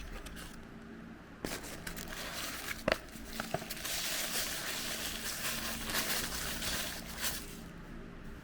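Plastic packaging of a Happy Meal toy crinkling as it is handled and torn open, with a few sharp clicks about three seconds in. It starts about a second and a half in and dies away shortly before the end.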